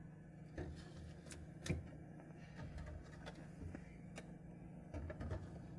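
Faint clicks and soft knocks from items and plastic containers being handled on a refrigerator shelf, over a steady low hum.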